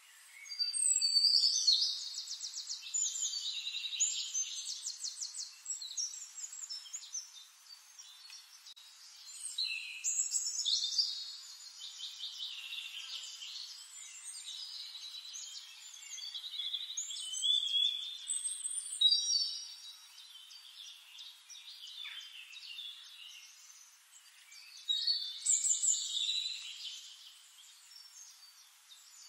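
Birds singing: several bursts of rapid trilled and chirping song a few seconds apart, with a faint hiss between them.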